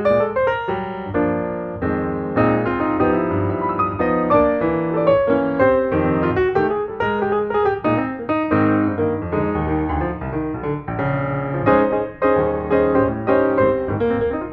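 Piano music: a busy, steady stream of quickly struck notes over a lower bass line.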